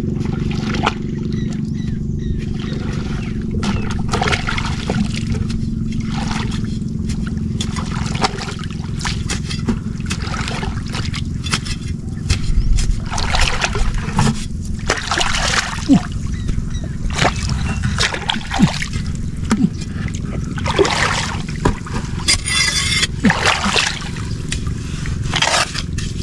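Water sloshing and splashing with scraping in wet mud, in irregular bursts that grow louder about halfway through, over a steady low rumble.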